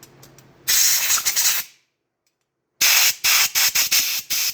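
Pressurised spray hissing into a hydraulic roller lifter to flush it out: one hiss of about a second, then after a pause a rapid run of short spurts.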